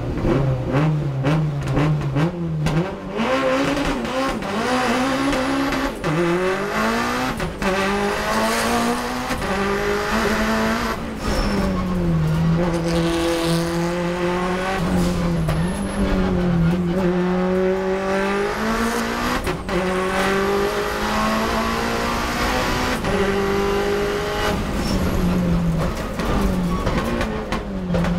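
Race car engine heard from inside the cockpit, pulling away from the start line and accelerating hard up through the gears. The pitch climbs in each gear and drops at each shift, with short sharp cuts at the shifts.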